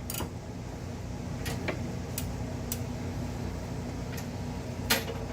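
A ratchet wrench clicking in single, unevenly spaced clicks as it tightens a caliper bracket bolt, about six in all, with the sharpest near the end. A low steady hum runs underneath.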